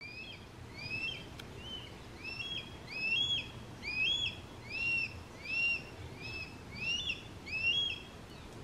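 Juvenile hawk giving a series of high-pitched calls, each rising and then falling, a little more than one a second, stopping shortly before the end: a young hawk crying to be fed by its parents.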